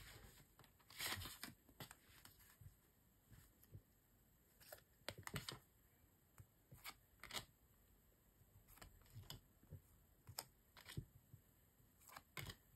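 Faint handling of photocards: a stack of cards slid out of a sleeve and flipped through by hand, giving soft scattered clicks and rustles of card against card.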